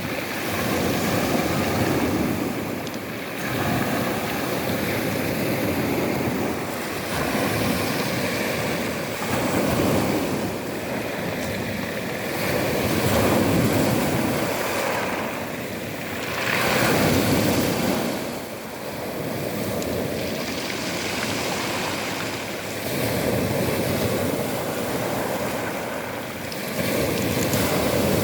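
Storm waves on the sea surging and breaking one after another, the rush swelling and falling every few seconds, with wind on the microphone.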